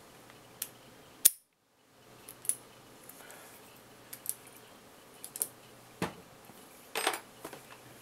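Scattered small metallic clicks and taps of lock picks and a tension tool working a Tri-Circle 265 padlock, at irregular intervals. One sharp click just over a second in is the loudest, followed by a brief moment of dead silence.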